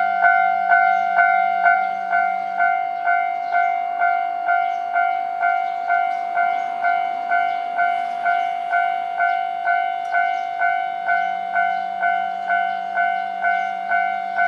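Japanese railway level-crossing warning bell ringing steadily, about two strikes a second. Partway through, a train passes over the crossing and adds rail noise and wheel clicks under the bell.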